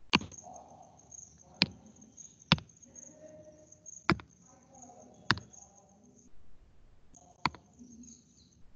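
Computer mouse clicks: six sharp single clicks at uneven intervals, over a faint steady high hiss.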